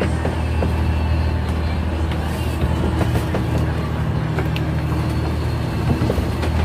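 Boat engine running steadily with a low, even hum, with a few light clicks and knocks on top.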